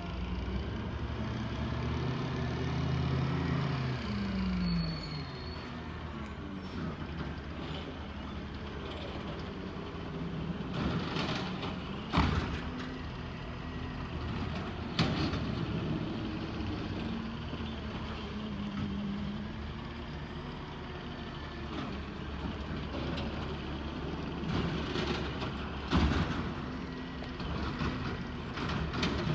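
Automated side-loader garbage truck's diesel engine running while its hydraulic arm lifts and dumps wheeled carts, with a whine falling in pitch in the first few seconds. Several sharp bangs stand out as carts are shaken and knocked against the hopper.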